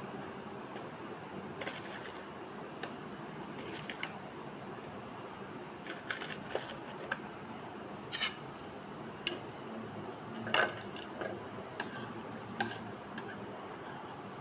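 A steel spoon clinking and scraping against a steel saucepan while fried bread slices are turned in sugar syrup: scattered light knocks at irregular intervals, the loudest about two-thirds of the way through, over a steady hiss.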